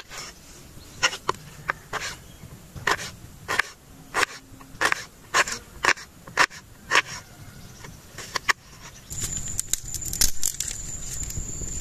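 Kitchen knife cutting small onions on a wooden cutting board: a run of sharp knocks, about two a second, as the blade goes through each onion and strikes the board. They stop near the end, when a steady high-pitched whine and a louder background come in.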